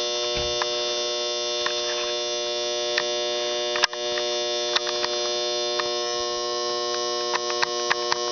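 A 355 small-block Chevy V8 with a mild cam, running steadily on open headers with no exhaust, giving an even, buzzy note. Sharp clicks come at scattered moments, the loudest about four seconds in.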